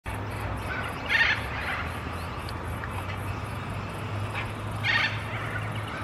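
Long-billed corellas giving two short harsh calls, about a second in and again near the end, over a steady low hum.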